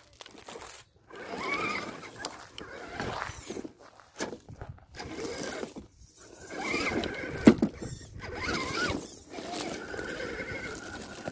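FTX Kanyon RC rock crawler's electric motor and gear drivetrain whining in short bursts of throttle, the pitch rising and falling as it crawls over rock. There is one sharp knock about seven and a half seconds in.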